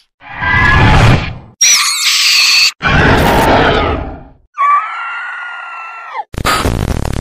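A run of horror sound effects, one after another with short breaks: a loud, harsh scream, a shrill, high shriek, another harsh scream, and a drawn-out wailing cry whose pitch drops away at the end. Near the end comes a stretch of choppy, crackling noise.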